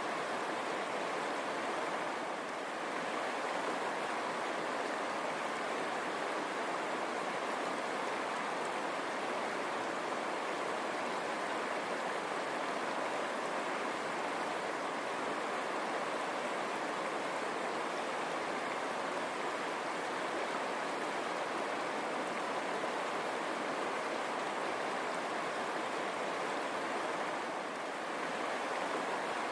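A river running over stones, a steady rushing of water.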